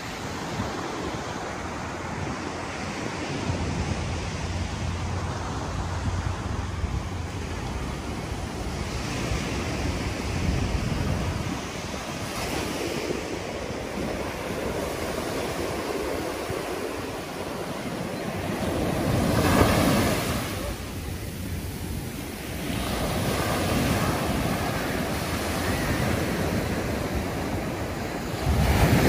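Atlantic ocean surf breaking and washing up a sandy beach, rising and falling in swells every few seconds, with the loudest wave crashing about two-thirds of the way through. Wind buffets the microphone with a low rumble in the first part.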